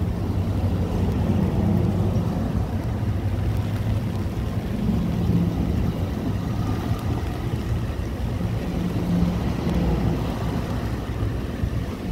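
NJ Transit bilevel passenger coaches rolling past close by, a steady rumble of steel wheels on the rails.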